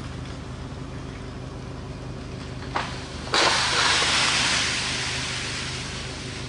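An ice-coated tree limb cracks once, and about half a second later gives way and crashes down through the branches in a loud rush that dies away over two or three seconds. A steady low hum runs underneath.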